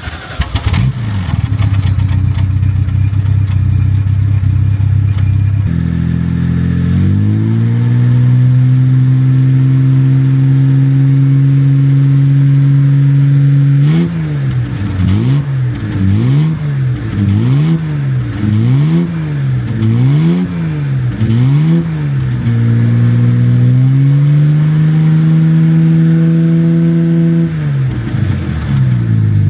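Jaguar Mk2's straight-six engine running: it idles, rises to a held fast idle, is revved in about eight quick blips, then held at a steady higher speed and eased back near the end.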